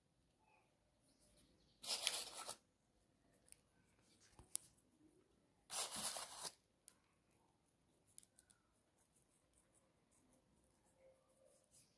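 Two short rustling bursts about four seconds apart, with faint scattered ticks between them: a bag of sesame seeds being handled and the seeds sprinkled over egg-washed pastries on a metal baking tray.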